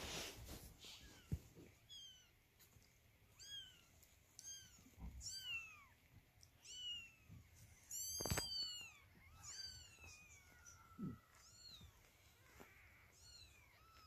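Ten-day-old kittens mewing over and over in short, high-pitched cries that rise and fall, about one or two a second, with a few soft bumps as they squirm on the bedding.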